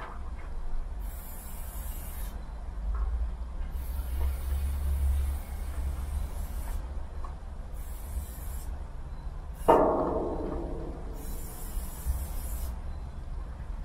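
Aerosol spray paint can spraying in repeated bursts of one to three seconds each, over a low steady rumble. About ten seconds in comes a single sudden loud knock that dies away over about a second.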